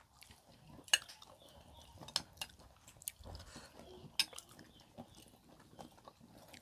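Faint tableware clinking a few times during a meal, in sharp clicks; the loudest come about a second in and about four seconds in.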